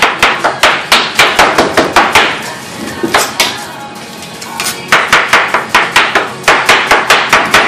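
Knife chopping watermelon rapidly on a cutting board, sharp strikes about five a second, in two runs with a pause of under two seconds in the middle.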